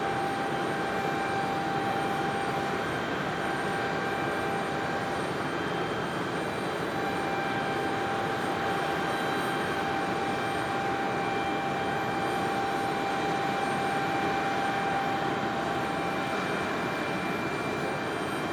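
Aircraft jet turbine running steadily: a constant whine over an even rushing hiss, with no change in pitch or level.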